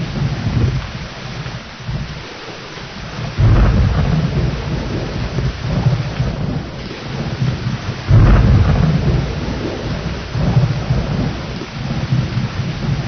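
Thunderstorm: steady heavy rain, with two rolls of thunder breaking in suddenly, about three and a half seconds in and again about eight seconds in, each rumbling on for a few seconds.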